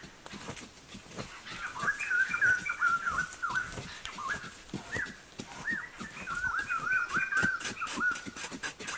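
Puppies whimpering and whining in quick runs of short, high squeaks that rise and fall, with scattered faint knocks beneath.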